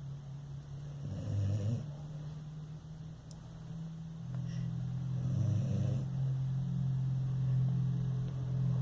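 Sleeping dog snoring, with two drawn-out snores about four seconds apart over a steady low hum.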